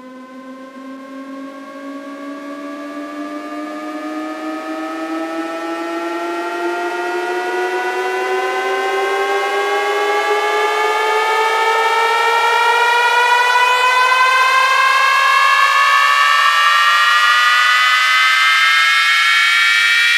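Synthesized riser: a buzzy electronic tone with layered pitches sweeping slowly upward and growing steadily louder, a build-up with no bass in it yet.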